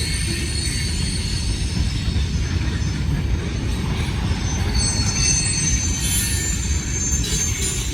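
Freight train cars rolling past: a steady low rumble of wheels on rail, with high steel wheel squeal in several pitches that shifts and grows stronger about halfway through.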